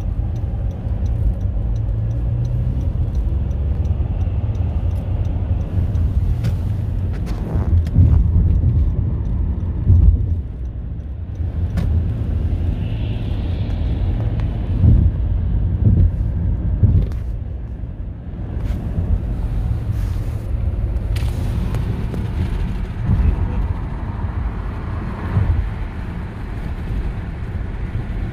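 Road noise inside a moving car at highway speed: a steady low rumble of tyres and engine, with a few short thumps along the way.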